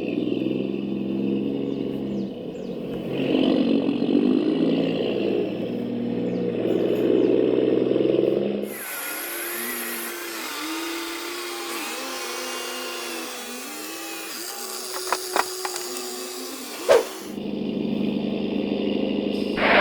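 Small electric motors and gearboxes of radio-controlled model construction vehicles whining as they work. The pitch steps up and down about once a second through the middle stretch, with a sharp click near the end of it. The louder, steadier whine sounds at the start and again near the end.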